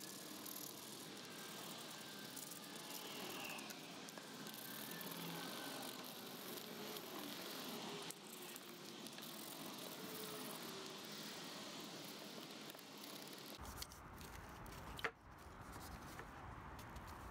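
Sandpaper rubbed by hand back and forth over a grey-coated pressed-steel toy truck part, a steady scratchy rasp. A single sharp click about fifteen seconds in.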